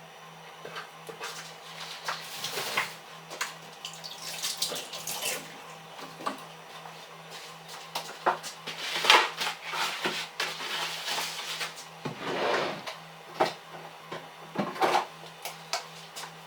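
Kitchen work at a sink: short bursts of running or splashing water with clinks and knocks of dishes and utensils, coming irregularly.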